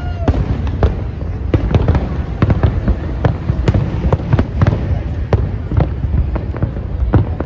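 Aerial fireworks bursting in rapid, irregular succession: a dense run of sharp bangs and crackles over a continuous low rumble of booming shells.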